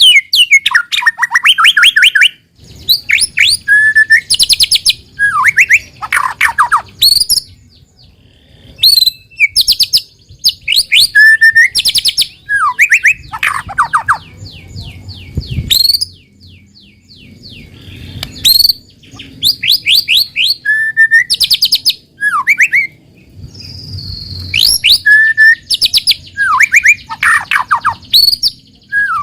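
White-rumped shama singing a loud, varied song: clear whistled notes, fast trills and sweeping rising and falling phrases, repeated with short pauses between them.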